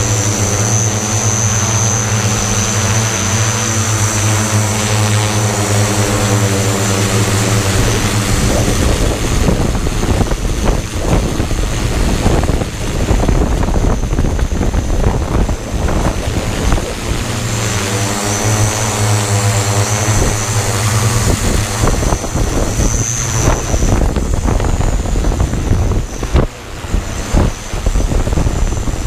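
Hexacopter's electric motors and propellers humming steadily in flight, with strong wind gusts buffeting the microphone. The wind drowns out the hum through long stretches in the middle and near the end.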